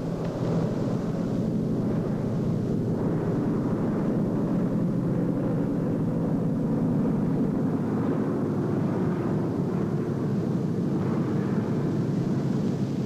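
Piston-engined propeller aircraft droning steadily, swelling up in the first half second and then holding level.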